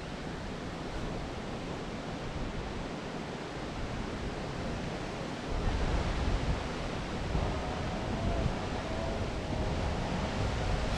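Wind rushing over the microphone with water noise around a small boat on open water, the low rumble gusting louder about five and a half seconds in.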